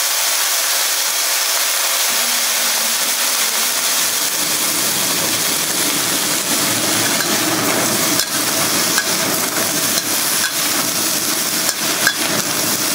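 Broccoli with soy sauce sizzling steadily in a hot carbon steel wok. From about two-thirds of the way in, a metal wok ladle stirs and knocks against the wok, making a string of sharp clanks.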